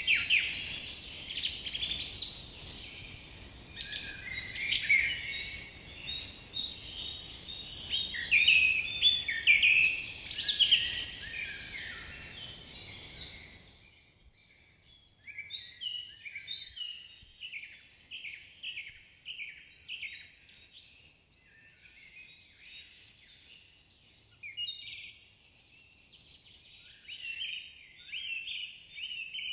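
Birds singing and calling: a dense chorus of high chirps and trills over a background hiss, then, about halfway through, an abrupt change to sparser, repeated short chirps.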